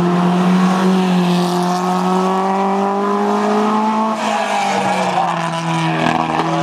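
Single-seater formula race car's engine pulling hard out of a hairpin, its note climbing slowly, then dropping about four seconds in and carrying on at a lower pitch.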